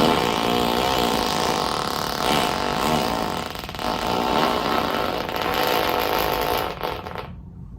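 A woman's long, loud fart, about seven seconds of continuous buzzing that wavers in pitch over the first second and then cuts off near the end.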